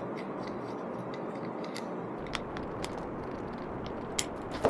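A few sharp, light clicks of nuts and bolts being handled and fitted to a plate bracket, the loudest a little after four seconds in, over a steady background hiss.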